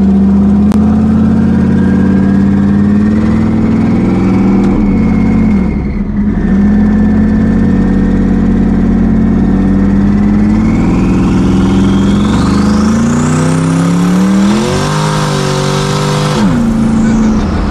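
Twin-turbo Coyote 5.0 V8 Mustang engine heard from the ride-along: running steadily under way, with a brief dip about six seconds in. From about ten seconds in a whine climbs steeply in pitch, then the engine revs up and drops off sharply near the end as the throttle closes.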